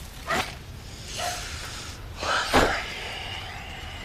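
A piglet grunting in three short calls, the loudest about two and a half seconds in.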